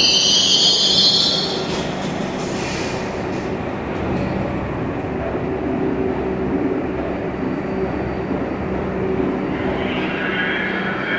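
An R62 subway train's high-pitched wheel and brake squeal fades out over the first second and a half as the train comes to a stop. It is followed by the steady hum of the train standing at the platform with its doors open. A higher hiss comes in near the end.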